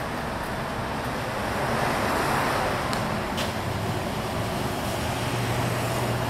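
Betts vertical turret lathe with a 108-inch table running under power, its table turning: a steady mechanical hum with a low drone that grows stronger toward the end, and a couple of faint clicks about halfway.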